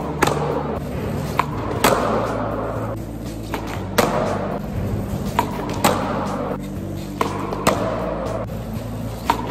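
A skateboard being popped and landed again and again on hospital flip attempts: a sharp snap or clack every second or two, with the wheels rolling on the hard floor between the impacts.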